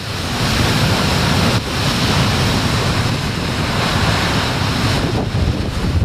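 Heavy storm surf breaking and crashing over rock ledges, a loud continuous rush of water, with strong wind buffeting the microphone.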